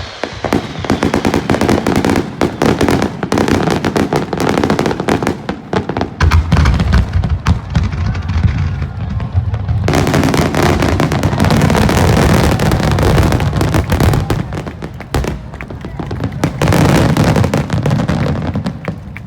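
Aerial fireworks going off: many sharp bangs and crackles in quick succession over deep booms, growing denser and louder about six seconds in.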